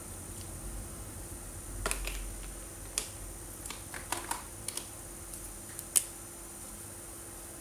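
A series of small, sharp plastic clicks and taps, the loudest about six seconds in: felt-tip markers and their caps being handled while changing colours.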